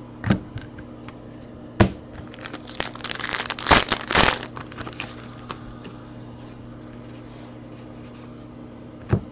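Foil wrapper of a Panini Contenders football card pack being torn open and crinkled, in a burst about three seconds in, with a few sharp clicks and taps of the pack and cards being handled around it.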